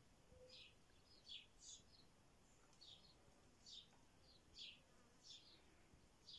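Faint, repeated short chirps of a small bird, about ten scattered through the few seconds, each a quick high note.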